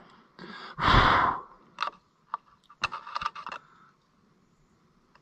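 A loud sigh about a second in, then a few light metallic clicks and scrapes from a screwdriver working at the breaker points inside the open distributor.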